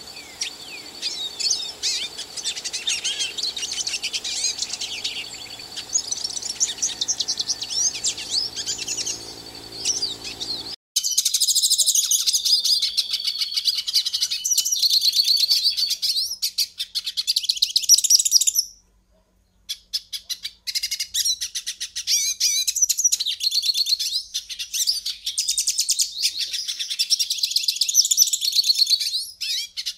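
Pintassilgo, a small finch, singing a long, rapid twittering song of quick chirps, trills and buzzy notes. The song breaks off for about a second past the middle.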